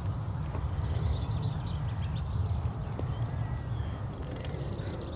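Birds calling here and there over a steady low rumble.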